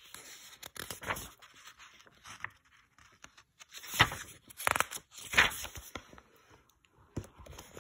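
Pages of a paperback book being turned and handled: dry papery rustles and swishes, with three louder swishes in quick succession about halfway through.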